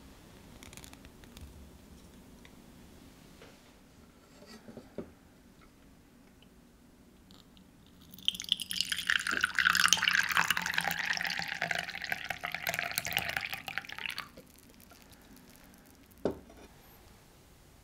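Tea poured in a steady stream from a glass teapot into a glass mug, splashing for about six seconds from about halfway through. A single light knock comes near the end.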